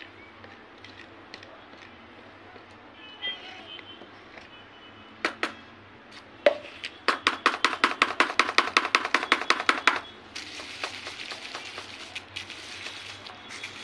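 A wooden spoon knocking against a plastic bucket: a few separate knocks, then a fast run of sharp strikes, about eight a second, for some three seconds, as thick paste made from used cooking oil is scraped out. After that a few seconds of rustling with light clicks, as the paste is pressed down in a plastic-bag-lined container.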